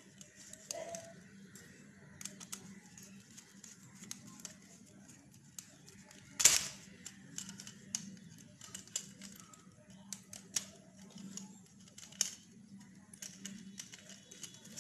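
Screwdriver and copper wire working the terminal screws of a plastic extension switchboard: scattered small clicks and scrapes, with one sharper click about six and a half seconds in.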